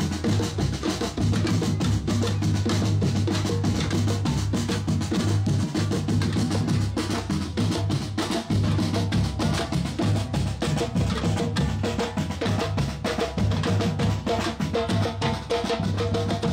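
A percussion group drumming a dense, unbroken rhythm on several drums, with deep bass drums under sharp snare-like strokes.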